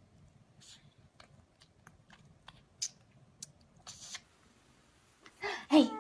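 Faint scattered clicks and small rustles, then near the end a baby begins to laugh.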